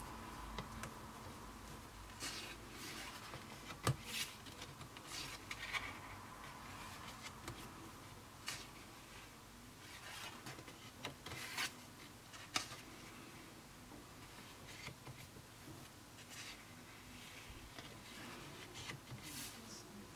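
Pages of a hardbound Leuchtturm1917 sketchbook with thick 180 g/m² paper being turned by hand: faint, scattered paper swishes and rustles, with a sharp tap about four seconds in.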